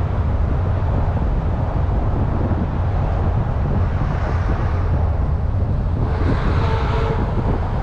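Wind buffeting the microphone, a steady low rumble with hiss. A faint pitched sound rises above it briefly about six seconds in.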